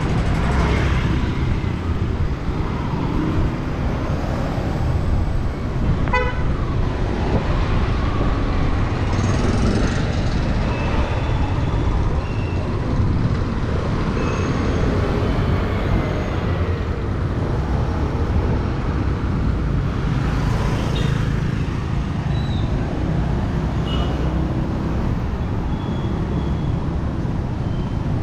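Busy city street traffic: vehicle engines running in a steady rumble, with occasional short horn toots, one of them about six seconds in.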